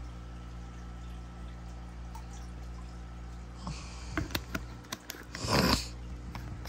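A capful of Prime water conditioner poured into aquarium water: a few light clicks, then a short splash toward the end, over a steady low hum.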